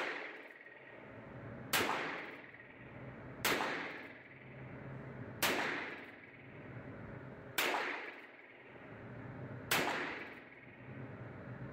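Six shots from a .22 single-action cowboy revolver, about two seconds apart, each ringing and echoing off the concrete of an indoor range. The slow, even pace comes from the hammer being cocked by hand before each shot.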